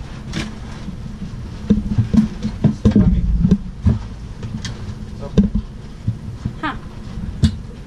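A plastic air-conditioning vent grille with its filter being pried out of its opening and handled, giving a run of knocks and clicks about two to four seconds in. A steady low hum sounds underneath.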